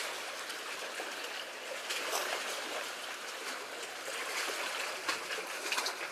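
Seawater washing and trickling in the gaps between concrete tetrapods, a steady hiss of moving water, with a few faint clicks near the end.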